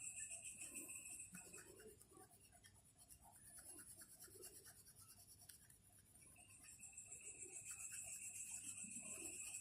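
Faint scratching of a coloring marker's tip stroking across paper. Behind it is a high-pitched, fast-pulsing background tone that fades away for a few seconds in the middle and then returns.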